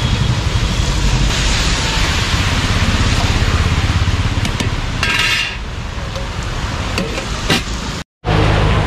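A metal spoon stirring and scraping through cooked rice in a large metal pot, with a few clinks and scrapes against the pot's side, over a steady rushing noise. The sound cuts out briefly near the end.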